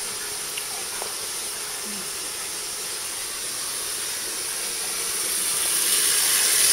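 Kitchen tap running water into a bowl in the sink: a steady hiss that grows louder near the end.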